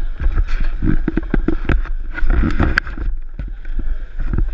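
Open-air restaurant terrace ambience: a steady low rumble of wind on the microphone under a busy run of short knocks and clatter.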